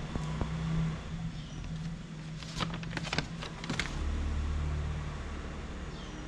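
A motor vehicle's engine running with a steady low hum, with a few sharp clicks about halfway through and a deeper rumble swelling around four seconds in.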